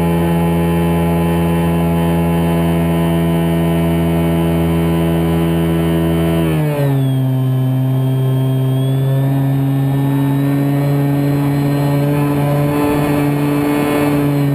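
Scorpion 4020-10 brushless electric motor spinning an 11x10 APC propeller, heard from a camera inside the model Spitfire's cockpit: a loud, steady drone that drops in pitch about seven seconds in as the throttle is eased back, then holds steady with a slight rise near the end.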